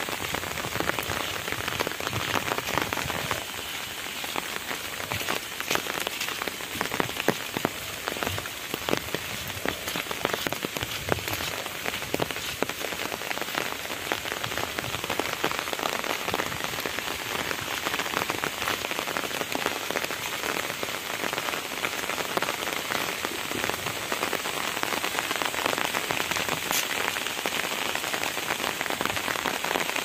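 Steady rain, with a dense stream of drops tapping on an umbrella held overhead: many small taps over an even hiss.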